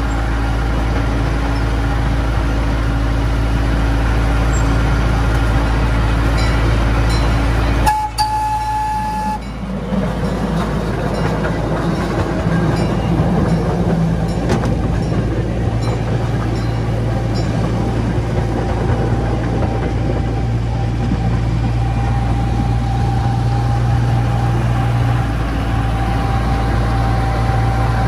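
Park train running along its track: a steady low rumble, with a short high tone about eight seconds in and a thin steady tone through the second half.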